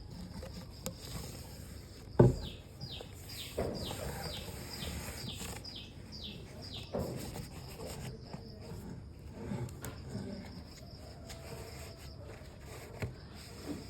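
Runs of quick falling chirps, a bird calling, over a faint steady background, with one sharp knock about two seconds in and a few softer knocks later.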